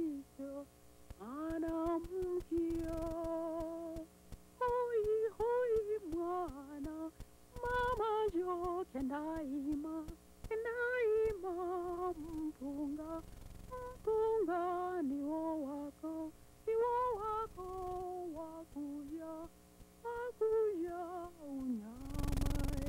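A woman's voice humming a slow, wavering melody with vibrato and long held notes, over a steady low drone. A short burst of noise comes near the end.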